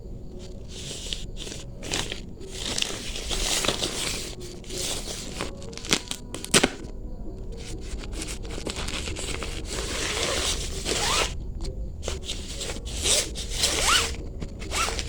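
Packaging being cut and torn open: irregular rustling, scraping and tearing of wrapping, with a couple of sharp clicks about six seconds in.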